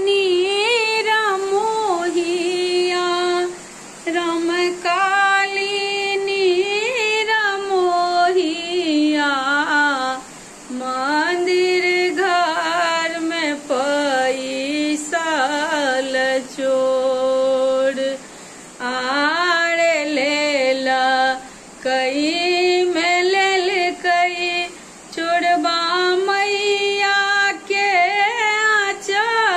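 A woman singing a Maithili samdaun, a farewell song to the goddess Bhagwati, solo with no instruments heard. She sings in long, drawn-out phrases with gliding, ornamented notes, pausing briefly for breath every few seconds.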